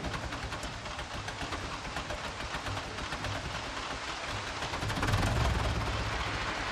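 Farm tractor engine idling with a steady rapid chugging, running louder for a moment about five seconds in.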